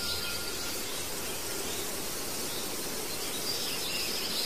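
Steady outdoor background noise, an even hiss, with faint high chirps near the start and again near the end.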